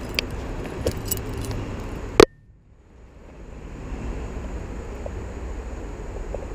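Small clicks and light rattles of hands working a hook out of a small rock bass's mouth, then one sharp knock about two seconds in. The sound then cuts out abruptly and a steady rushing background fades back in over the next second or two.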